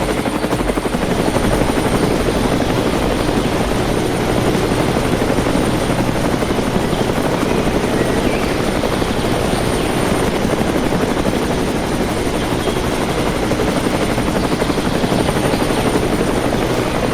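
Small electric motor and gearing of a homemade model construction vehicle running steadily, a dense whir with a thin high whine over it.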